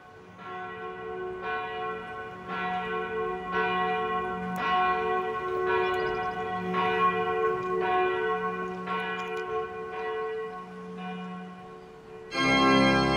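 Church bell tolling, about one stroke a second, each stroke ringing on into the next. Near the end a loud sustained musical chord comes in.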